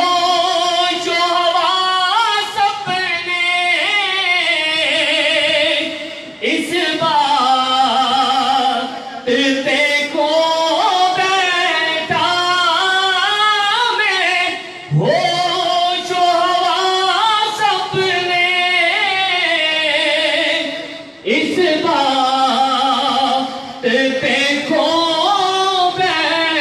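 A man singing a naat, an Urdu devotional poem, without instruments, in long wavering held phrases broken by short pauses for breath every three to six seconds.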